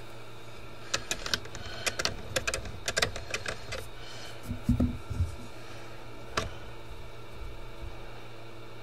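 Handling noise as the circuit board is moved under the inspection camera: a quick run of light clicks and taps, then a few dull thumps and one last click, over a steady low hum.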